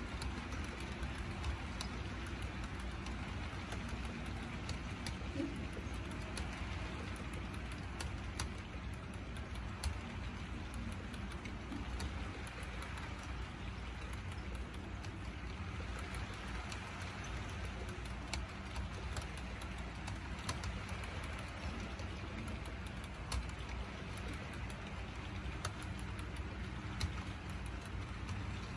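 Model railroad covered hopper cars and a caboose rolling steadily past on the track: a continuous rolling rumble with many light, irregular clicks from the wheels on the rails.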